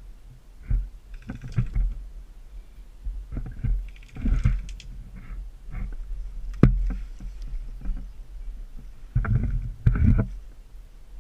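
Irregular low thumps and short rustles of handling noise on the microphone, with one sharp crack about six and a half seconds in.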